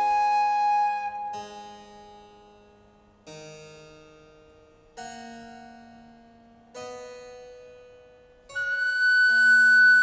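Recorder and harpsichord playing an early Baroque sonata. The recorder holds a note at first, then the harpsichord plays alone, with slow struck chords that ring and fade. Near the end the recorder comes back in with a long high note.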